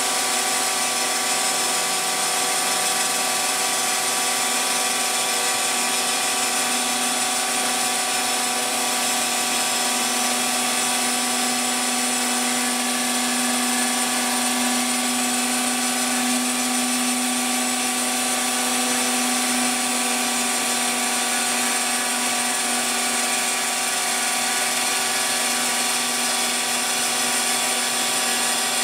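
Spindle of a Phlatprinter CNC mill running steadily as its bit cuts through a fibreglass sheet, a constant whine over cutting noise. A low hum within it grows louder for a while in the middle.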